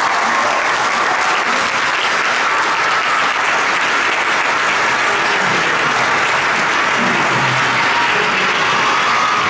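Congregation applauding steadily, with a held musical note sounding underneath.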